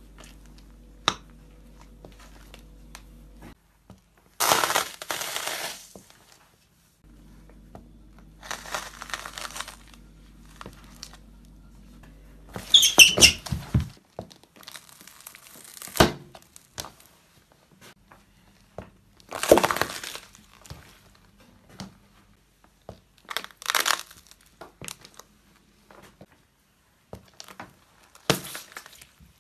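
A sneaker stepping on and crushing small packaged items, such as toothpaste tubes and a chewing-gum pack, in a series of crunches and crackles a few seconds apart, with one sharp crack about 16 seconds in.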